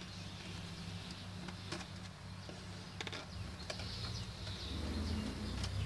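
Scattered small clicks of a screwdriver turning out the screws on a Lenovo Z51-70 laptop's plastic base panel, over a steady low hum that grows louder near the end.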